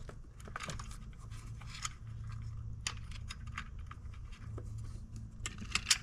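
Scattered small clicks and scratches of wire connectors being pulled off a GM HEI ignition coil and the coil being lifted out of the distributor cap, a few sharper clicks near the end, over a low steady hum.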